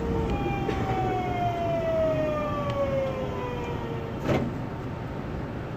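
Mitsubishi GTO-VVVF inverter and traction motors of an Osaka Metro 66 series train whining in a steady falling tone as the train slows under braking, over the rumble of the running train. A brief knock comes about four seconds in, as the whine fades.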